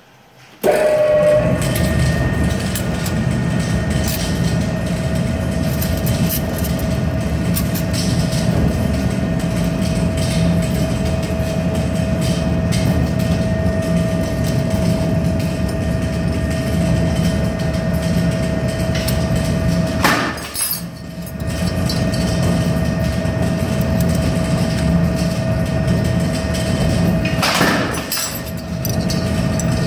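Press brake switched on about half a second in, its motor then running loud and steady with a constant whine over a low hum. Twice, about two-thirds of the way in and near the end, the running sound dips briefly with a sharp clack as the machine works a bend in the steel strip.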